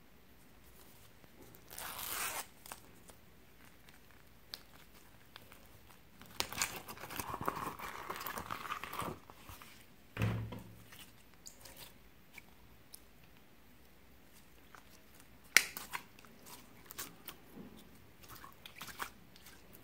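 Hands handling a vinyl pouch and a lump of clear slime: scattered rustling and scraping, a dull thud about ten seconds in, then a sharp click and small crackles while the slime is stretched.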